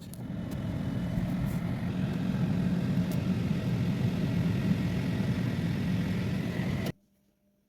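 BMW N52 straight-six engine running, a steady rumble that cuts off suddenly about seven seconds in.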